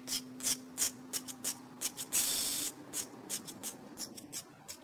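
Mega Bloks toy engine and tender pushed along a tabletop, with short hissing puffs about three a second and one longer hiss about two seconds in.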